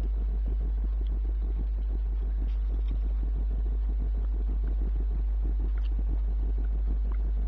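Steady low hum with a constant crackling hiss over it, unchanging throughout.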